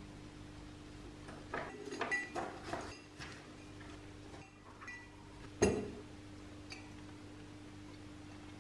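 Rusty steel rods, bolts and nuts dropped into a glass dish: a quick run of clinks over about two seconds, then one louder clink about halfway through and a small click after it. A steady low hum sits underneath.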